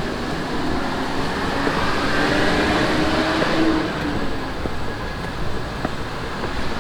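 Steady rumble and hiss of a subway station, with a faint held tone in the middle.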